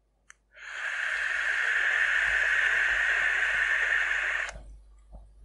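A click, then a long, steady airy hiss of a draw through the Vype eBox e-cigarette's mouthpiece and airflow, lasting about four seconds and stopping suddenly.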